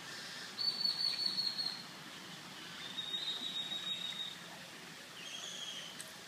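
Two long, high, steady whistled notes, the second a little lower, then a shorter, fainter one near the end.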